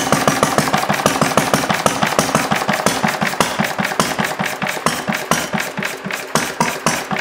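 Single-cylinder Briggs & Stratton engine fitted with a clear glass cylinder head, running steadily with a rapid, even firing beat.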